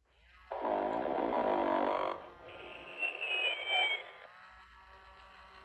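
Snoring Ernie toy playing its snore: a long, loud snore starting about half a second in, then a wavering high whistle near the middle.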